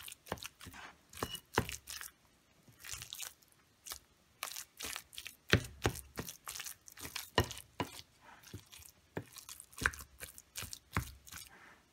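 Cooked sweet plantains being mashed in a glass bowl with a wooden slotted spatula: an irregular run of knocks and scrapes of wood against glass with soft mashing, a few knocks much louder than the rest.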